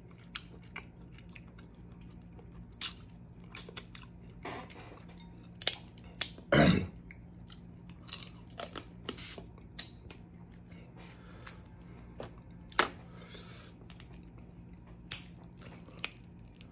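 Snow crab legs being cracked open and eaten: scattered sharp shell cracks and snaps between wet chewing. The loudest crunch comes a little over a third of the way through.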